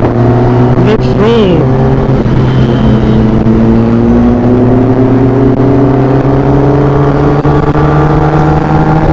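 Kawasaki ZX-10R inline-four engine pulling steadily, its note rising slowly as the bike accelerates through a gear. About a second in, a short tone rises and falls.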